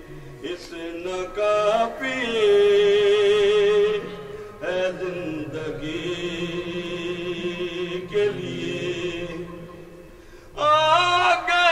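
A man chanting devotional verse unaccompanied, in long held notes with a wavering vibrato, phrase by phrase with short pauses for breath and a louder phrase starting near the end.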